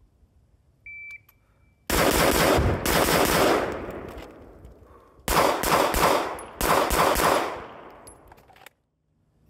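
A shot timer beeps once. About two seconds in, an 11.5-inch 5.56 rifle fires a rapid string of shots. After a pause for the transition, a Glock 17 9mm pistol fires two quick strings of shots, each trailing off in a long echo, before the sound cuts off suddenly.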